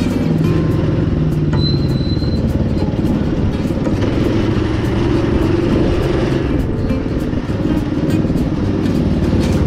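Cyclekart's small engine running at low revs, its pitch dropping near the start as it slows, then running steadily.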